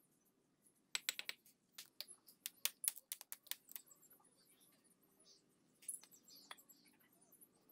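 A hammer tapping a fired clay brick to set it on the wall: a quick run of about a dozen sharp taps, then two more a few seconds later.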